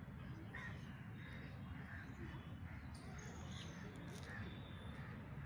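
Faint outdoor ambience: birds calling now and then over a low, steady rumble.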